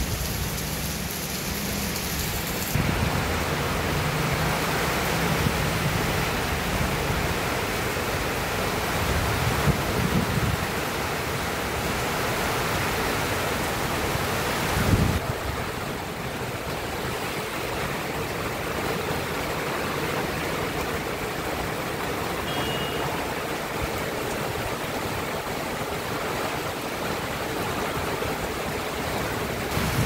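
Heavy rain falling steadily, an even hiss, with a couple of brief low rumbles about ten and fifteen seconds in.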